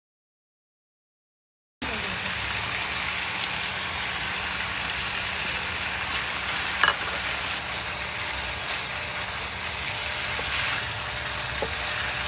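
Food sizzling in hot oil in a frying pan, a steady sizzle that starts abruptly after a moment of silence, with a single sharp tap of a utensil about two-thirds of the way through.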